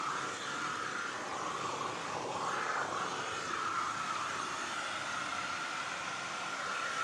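Steady mechanical hum and hiss with a constant high whine running through it, like machinery or a motor running in a factory room.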